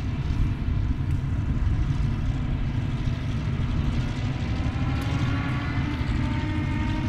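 Several heavy eight-wheeled BM-27 Uragan rocket-launcher trucks on ZIL-135 chassis, each driven by twin V8 petrol engines, running steadily as they drive across a field. A rising engine whine comes in during the second half.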